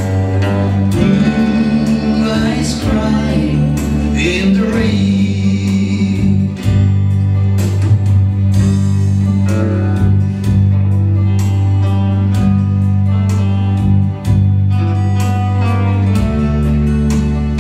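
Live country song: strummed acoustic guitar over sustained bass notes, with singing mostly in the first half.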